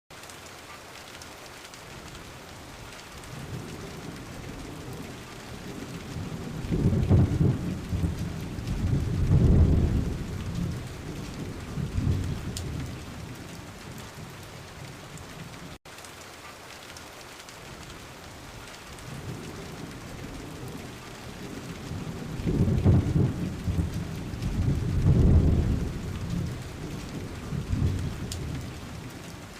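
Steady rain with rolling thunder. Low rumbles swell up and die away over several seconds, then after a brief cut the same rumbling rolls come again.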